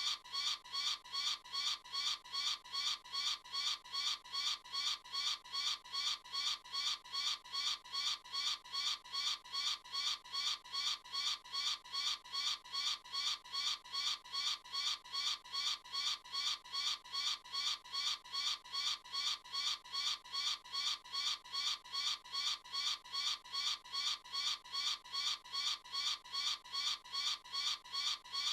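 Eagle calling: a high-pitched call repeated evenly, about twice a second, without a break.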